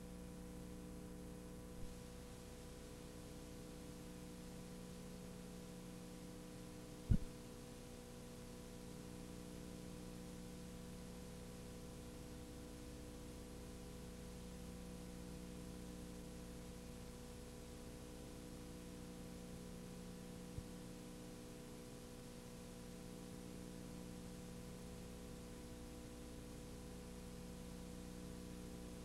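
Steady electrical hum with faint hiss from the playback of a blank stretch of videotape. A sharp click comes about seven seconds in, and a smaller one about twenty seconds in.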